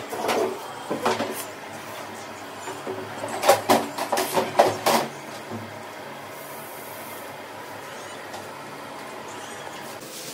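Kitchen utensils and metal cookware clattering and scraping, with a cluster of sharp knocks a few seconds in, then a steady low background hiss.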